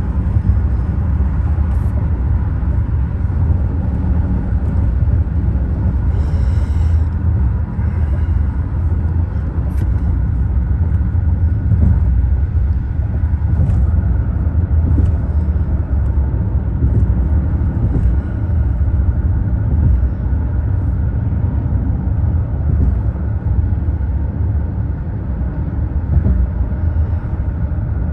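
Steady low road rumble inside a car's cabin at expressway speed, tyre and engine noise through the closed windows, with a brief hiss about six seconds in.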